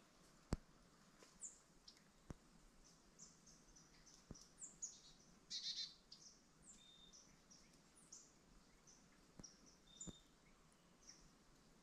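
Faint, scattered high chirps and short downward-sweeping calls of small birds. A few sharp clicks come through as well, the loudest about half a second in.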